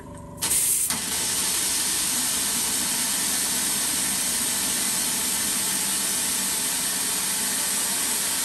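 3D-printed rocket engine swirl injector blasting water atomized by compressed air in a cold-flow test: a loud, steady hiss that starts suddenly about half a second in. The air inlet runs at roughly 6 to 7 bar and the water tank at about 3 bar.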